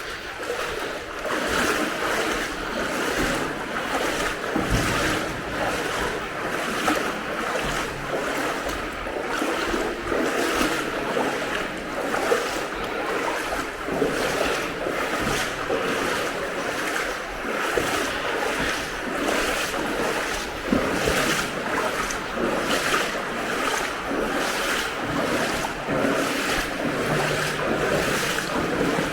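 Wading through deep floodwater in wellington boots: a steady rhythm of sloshing, splashing strides, about one and a half a second.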